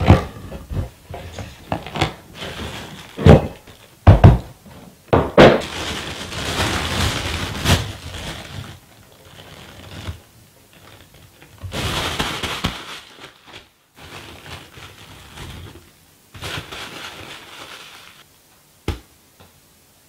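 Unboxing handling sounds. A cardboard box gives several sharp knocks and thuds, then clear plastic packaging bags rustle and crinkle in a few long stretches.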